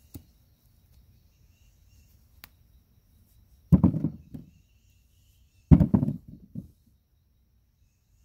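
Two thumps about two seconds apart, each trailing off in a few smaller knocks: freshly dug potatoes being dropped as they are gathered up.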